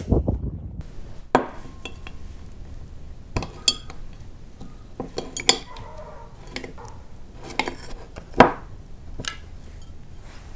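A hand-held jar-lid opener prying the metal cap off a glass jar of tomato sauce, with a series of sharp metal and glass clinks. The loudest clink comes about eight seconds in. There is a brief low rumble at the very start.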